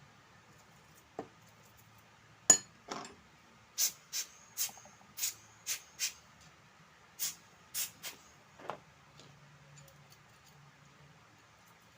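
A series of about a dozen short, sharp scratchy clicks, irregularly spaced, the loudest about two and a half seconds in: brush strokes and handling on the G-Shock's plastic resin bezel during cleaning.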